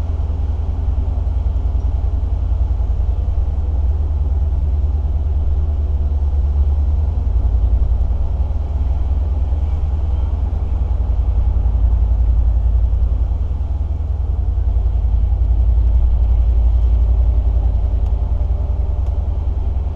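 Land Rover Discovery 2 driving slowly through soft beach sand: a steady low rumble of engine and tyres that swells a little now and then.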